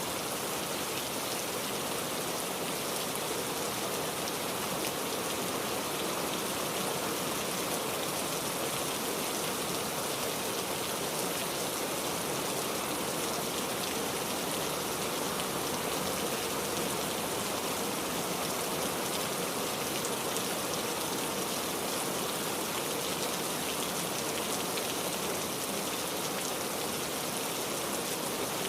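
Steady rain falling, a continuous even hiss with the patter of individual raindrops on a surface.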